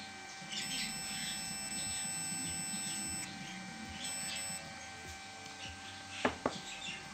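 A clamp meter's continuity buzzer gives a steady high-pitched beep for about two and a half seconds, then a short half-second beep, as its probes touch connected points on a DC jack's pins. Two sharp clicks come near the end.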